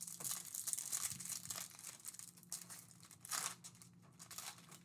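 Foil wrapper of a silver Topps trading-card pack crinkling and tearing as it is opened by hand, with a short louder crackle about three and a half seconds in.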